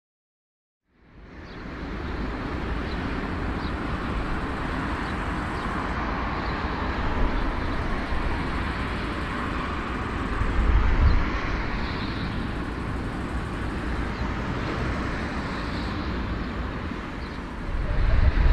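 Jet engines of a four-engined airliner running at an airport, a steady rushing hum with a low rumble that comes in about a second in and grows louder near the end.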